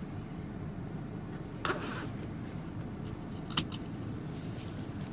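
Steady low rumble inside a car cabin with the engine running, broken by a brief rustle about one and a half seconds in and a single sharp click about three and a half seconds in.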